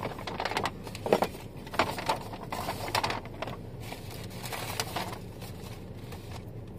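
Brown paper bag crinkling and rustling as it is opened and handled, in irregular crackles that are busiest in the first few seconds.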